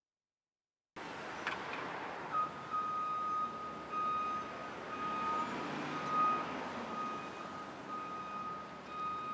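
City street traffic ambience that cuts in about a second in, with a high electronic beep repeating steadily from a little later on.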